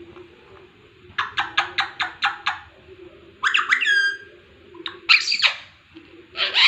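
Pet parrot calling: a quick run of about seven short chirps, then a call that falls in pitch, then a harsh squawk.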